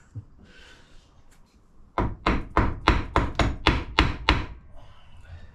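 Quick series of about ten hammer blows on a gearbox casing held in a vise, roughly four a second, starting about two seconds in: tapping to try to split the casing apart.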